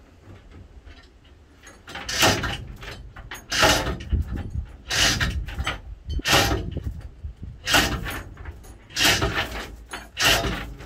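Heavy metal strokes on an old fishing-boat engine being dismantled, about one every second and a half, each briefly ringing.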